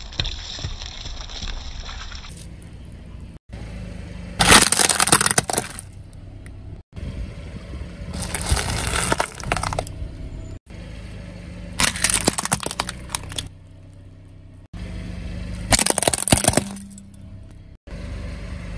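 A car tyre rolling over and crushing small plastic objects: about four separate bursts of loud cracking and crunching, each a second or two long, split by abrupt cuts, over a low steady hum. Near the start a juice pack bursts and sprays under the tyre.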